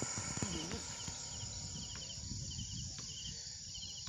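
Insects in the trees: a steady high buzz with short chirping trills recurring every second or so, over a low rumble.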